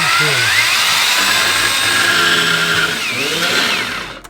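Power drill running under load in wood, its motor pitch rising as it spins up and then stopping shortly before the end.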